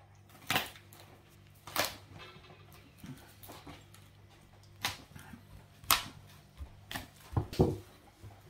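Wooden cutting board being shifted and handled on a table: a few scattered sharp knocks and taps of wood against the tabletop, with a faint steady hum underneath.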